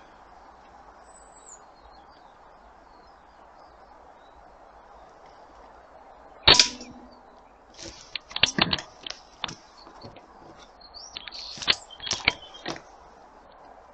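A single air rifle shot about six and a half seconds in, a short sharp crack. Two quick runs of light clicks and clacks follow, a few seconds after the shot.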